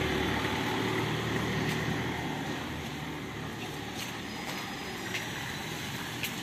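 Street traffic noise: a steady hum with a car engine's low rumble that fades over the first two or three seconds, and a few faint clicks.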